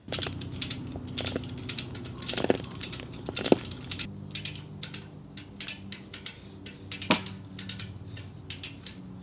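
Ratchet strap being cranked tight to pull a tree over, its pawl clicking at an uneven pace, with a few louder cracks under the strain.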